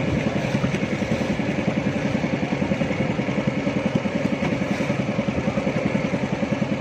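Small single-cylinder boat engine running steadily with a fast, even throb.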